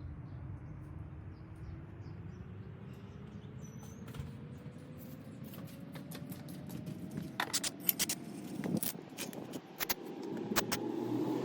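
Sharp metallic clicks and clinks of hand tools and hinge bolts being worked on a car door, coming in a run from a little past the middle, over a low steady hum and a faint tone that slowly rises in pitch.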